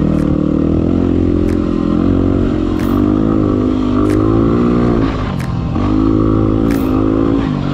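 Yamaha WR250R's single-cylinder four-stroke engine under way, its note rising and falling with the throttle and dropping off briefly about five seconds in before picking up again. A few short sharp clicks sound over it.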